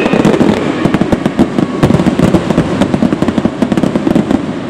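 Fireworks going off overhead in a fast, dense string of pops and crackles that thins out near the end.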